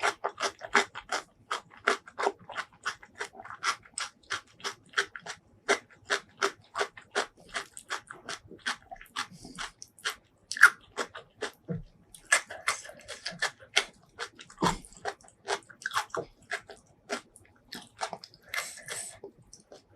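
Close-miked crunchy chewing: a mouth biting through crisp food in an even run of crunches, about three a second, with a short let-up about halfway through.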